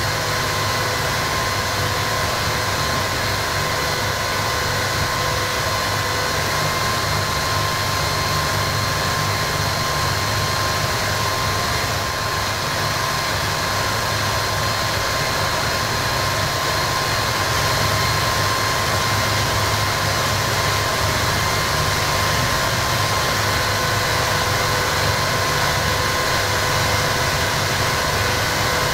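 Harsh noise music from a small Korg synth and a cheap radio fed through Boss distortion and octave pedals. It is a dense, steady wall of distorted hiss and low rumble, with a held piercing tone and its overtones riding on top, and it gets a little louder about 18 s in.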